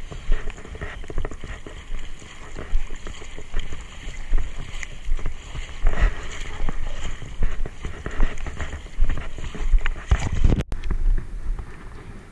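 Shallow seawater sloshing and splashing around the legs of someone wading through it, with wind buffeting the microphone. The splashes come in irregular surges, and the sound cuts out for a split second about ten and a half seconds in.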